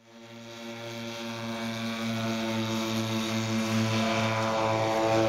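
Twin propellers of a radio-controlled scale model FMA IA 58 Pucará running hard through its takeoff run and lift-off. The sound is a steady hum with a regular pulsing beat. It fades in at the start and grows louder throughout.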